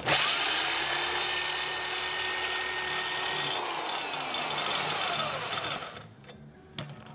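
Mid-torque impact wrench spinning a plastic-guided sharpening stone against a steel Scag lawnmower blade: a steady motor whine with a harsh grinding scrape. It starts abruptly, runs for about five seconds, then winds down with a falling whine and stops.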